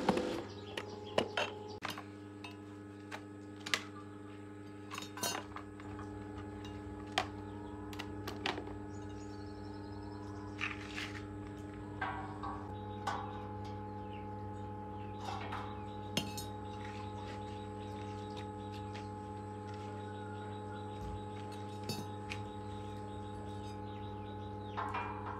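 Irregular metallic clinks and taps of tools and metal parts being handled during handbrake work, over a steady hum.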